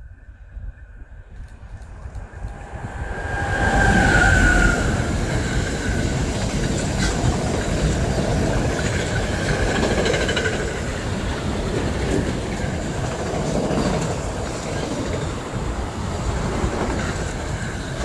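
A train arriving and rolling past close by: the noise rises sharply about three seconds in, with a high steady whine loudest just as it arrives, then a continuous rumble of wheels on the rails with scattered clicks.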